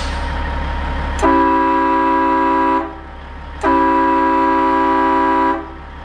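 Train horn fitted to a semi-truck day cab, sounded in two blasts of under two seconds each about a second apart. Each blast is a steady chord of several tones that starts and stops sharply, over a low steady hum.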